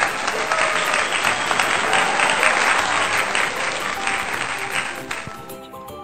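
Loud applause with cheering-crowd texture, starting abruptly and cutting off about five seconds in, over light background music.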